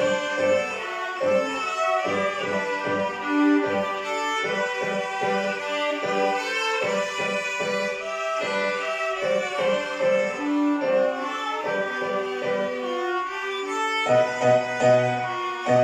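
A small ensemble of violins playing a melody together in moderate, flowing notes. About fourteen seconds in, deeper notes join in a pulsing rhythm.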